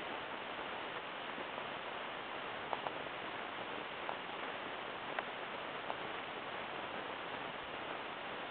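Steady hiss with a few faint, scattered clicks and ticks.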